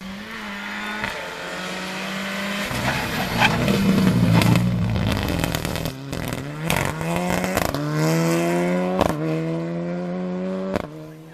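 Renault Clio rally car engine at full throttle. It comes up loud, then accelerates hard through the gears, the engine note climbing and dropping back three or four times at each gear change. It cuts off sharply near the end.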